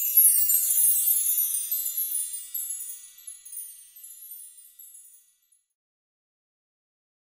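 A shimmering chime sound effect, like a run on wind chimes: many high ringing tones that sweep downward and die away over about five seconds.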